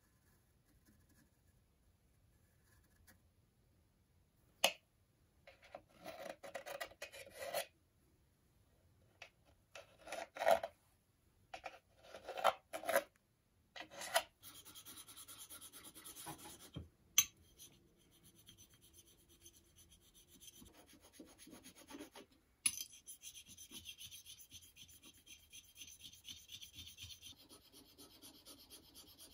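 Scratchy handling sounds and a few sharp knocks as a pencil marks and traces on a wooden block. Then, from about two-thirds of the way in, steady back-and-forth rubbing of a steel chisel being honed flat on a metal sharpening plate.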